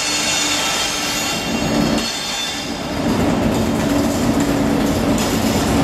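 Loaded timber wagons of a freight train rolling past at low speed: a steady rumble of wheels on rail with a few clicks over rail joints and a low hum. A faint high wheel squeal fades out over the first couple of seconds.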